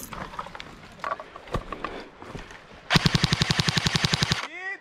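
Brush rustling and crackling, then an airsoft rifle firing one full-auto burst of about a second and a half at roughly fifteen shots a second, ending in a brief falling whine.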